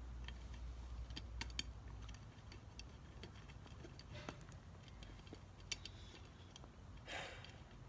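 Irregular light clicks and taps of hand tools and small metal parts being worked on a Mercedes 722.6 transmission valve body, over a faint steady hum, with a short soft hiss near the end.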